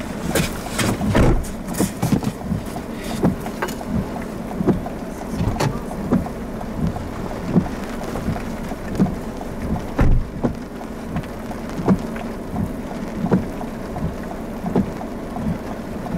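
Strong gusty wind buffeting the microphone in a continuous rumble, broken by sharp taps every second or so.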